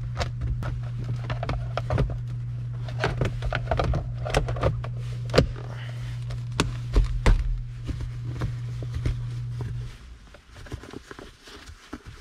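Plastic interior trim being handled and slid into place around the gear shifter: scattered clicks, taps and knocks. A steady low hum runs underneath and stops about ten seconds in.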